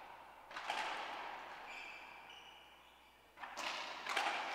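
Racquetball rally: sharp smacks of the ball off racquets and the court walls, each ringing on in the enclosed court's echo. There is one hit about half a second in, brief high squeaks in between, and a quick run of hits near the end.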